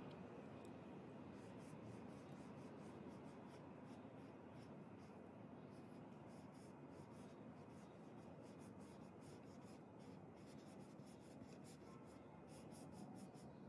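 Faint scratchy strokes of a small paintbrush dragged across canvas, a quick irregular series of short strokes over a low steady hiss, coming thickest near the end.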